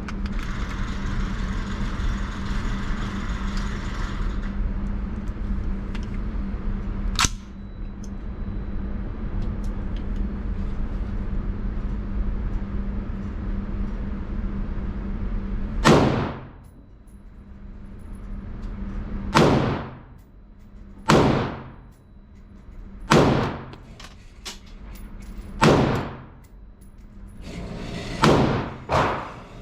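A steady low hum and noise, with a single sharp crack about seven seconds in. Then, from about halfway through, a slow string of six or seven rifle shots about two seconds apart, each with a short echoing tail.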